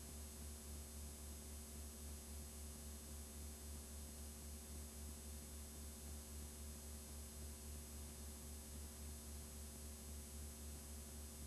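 Blank videotape playing back: a steady hiss with a low electrical hum that pulses a few times a second.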